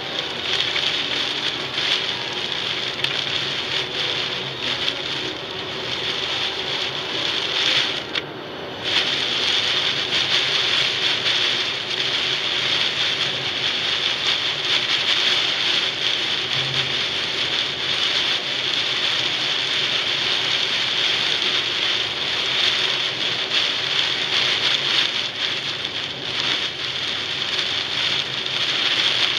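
Heavy rain drumming on a moving car's windshield and roof, heard from inside the car as a dense, steady hiss. It drops away briefly for under a second about eight seconds in.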